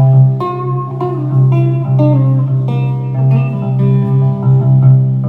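Guitar played live: picked notes in a loose, unhurried line, ringing over a sustained low note.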